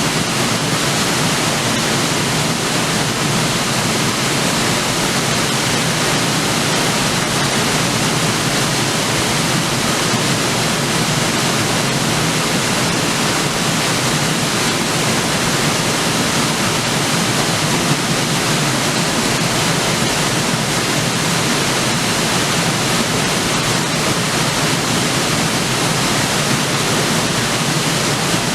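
River waterfall: water falling and splashing onto rocks, a loud, steady rushing hiss that doesn't change.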